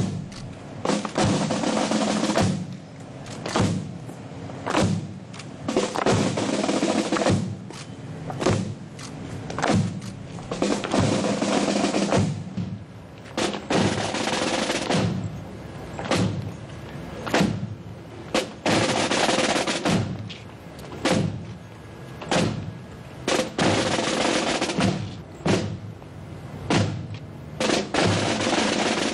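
Military snare drums playing a funeral beat: sharp single strokes mixed with longer drum rolls, with deeper bass-drum beats underneath.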